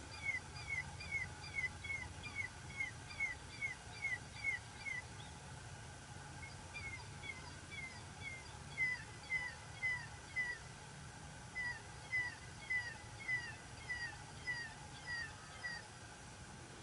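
High-pitched chirping call: short downslurred notes repeated about three a second, in three runs broken by short pauses.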